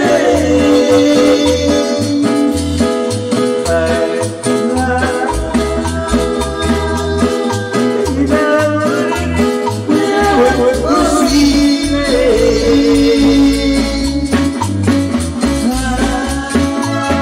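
Latin dance music playing loud, with a steady pulsing bass beat under sustained melody lines.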